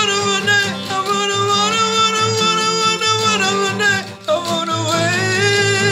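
A man singing long held notes with no clear words, over a strummed acoustic guitar. The voice breaks off briefly about four seconds in and picks up again.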